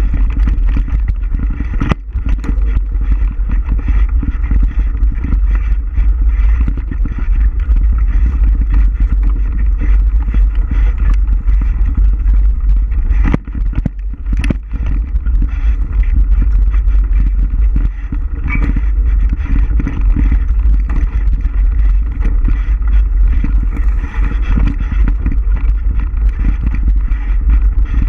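Wind buffeting the microphone of a camera on a moving bike, a steady low rumble, with frequent knocks and rattles from riding over a rough trail.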